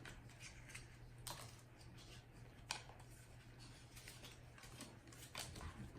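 Faint scattered clicks and rustles of trading cards being handled and flipped through one at a time, over a low steady hum.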